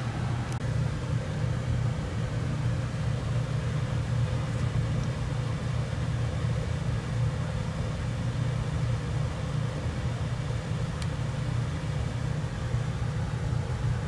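Air-conditioner outdoor unit machinery running with a steady low hum and rumble.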